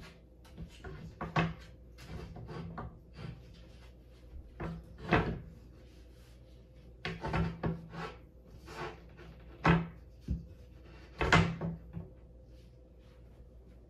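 Desk pieces being handled and pushed together so the top's clips snap onto the base: a series of irregular knocks and clunks, the loudest about five, ten and eleven seconds in.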